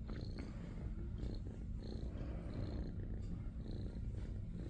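Domestic shorthair tabby kitten purring steadily, a continuous low rumble, while being stroked and massaged.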